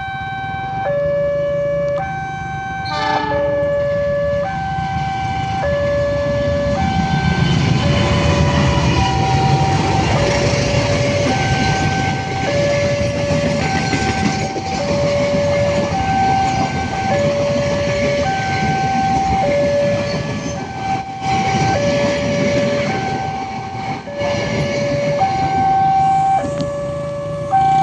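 Railway level-crossing warning siren sounding a two-tone high-low alternation, each tone held just under a second. From about six seconds in, a passing train adds a loud rumble and wheel noise beneath it.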